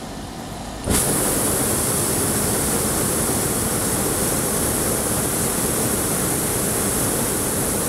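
Hot-air balloon's propane burner firing overhead: a loud, steady hiss that starts suddenly about a second in and runs on without a break.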